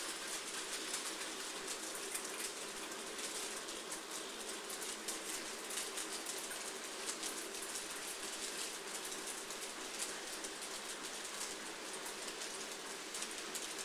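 N gauge model freight train running past: a steady hum under a fast, irregular patter of small clicks as its wheels cross the rail joints and points.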